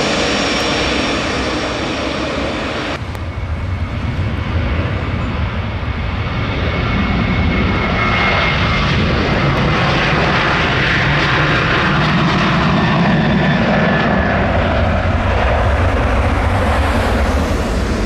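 Boeing 737-800's CFM56-7B jet engines running loud and steady, with a deep rumble and a faint whine. The sound grows heavier in the low end from about halfway through.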